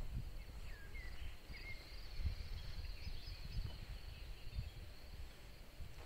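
Wind rumbling unevenly on the microphone, with a few short bird chirps in the first two seconds and a steady high-pitched trill in the background.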